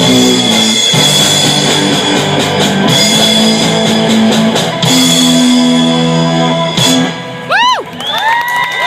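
Rock music played on guitar and bass with steady held notes. About seven seconds in the music stops and a quick swooping tone rises and falls, followed by another rising tone that holds steady.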